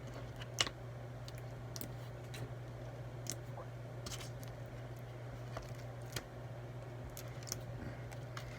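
Slime being pressed and squished by hand for ASMR, giving scattered small clicks and pops, a dozen or so, over a steady low hum.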